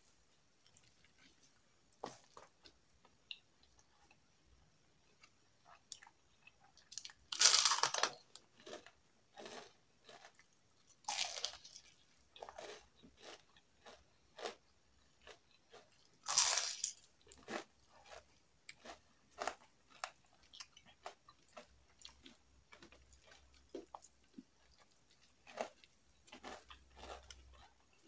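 Close-up eating: bites of crispy fried chicken skin crunching loudly, with chewing in between. The loudest crunches come about seven and a half, eleven and sixteen and a half seconds in.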